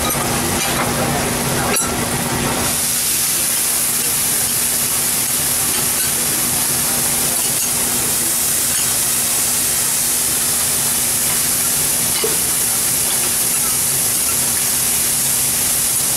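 Bean sprouts sizzling on a hot teppanyaki griddle: a loud, steady steaming hiss that starts suddenly about three seconds in.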